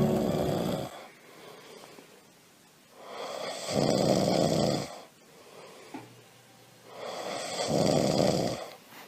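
A person snoring: two long snores about four seconds apart, with quiet breathing between them.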